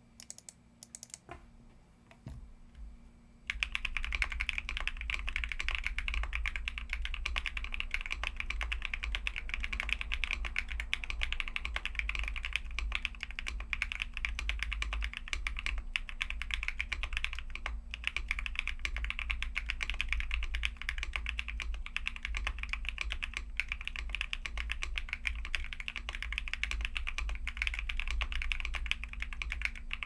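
Vega custom mechanical keyboard with a POM plate, stock Laguna Blues switches, lubed TX AP stabilizers, full foam mods and JTK Night Sakura keycaps, typed on fast and continuously in a sound test. The first few seconds hold only a few scattered light clicks; about three and a half seconds in, steady rapid typing begins and runs on without a break.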